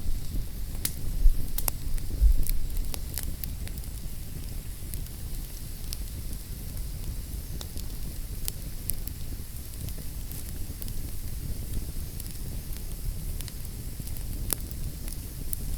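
Wood fire crackling in a fireplace: a steady low rumble of flames with scattered sharp pops and snaps, a few louder low thumps in the first few seconds.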